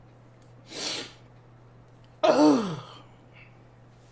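A man in a fit of helpless laughter: a sharp gasping in-breath, then a sudden loud cry that falls in pitch.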